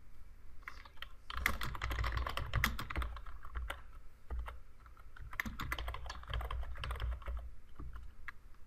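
Typing on a computer keyboard: two quick runs of keystrokes with a short pause between them.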